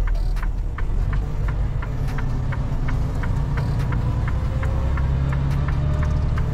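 Semi truck's diesel engine running under way, heard from inside the cab as a steady low rumble, with an even ticking about three times a second.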